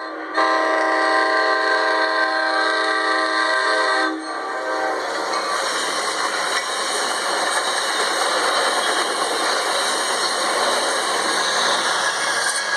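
Train horn sounds a steady chord for about three and a half seconds and cuts off. A steady running noise of a train on track follows.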